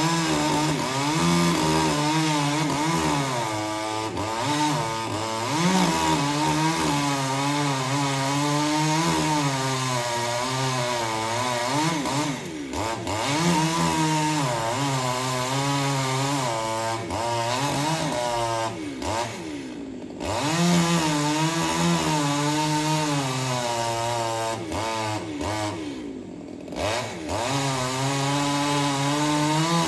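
Two-stroke chainsaw running at high revs while cutting wood. Its engine pitch sags and recovers as the chain loads in the cut, and three times it briefly drops off as the throttle is eased.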